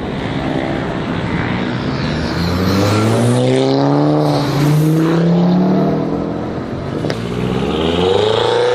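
BMW M5's twin-turbo V8 accelerating hard from a pull-away, its pitch climbing through a gear, dropping at an upshift about halfway through, then climbing again with another shift near the end.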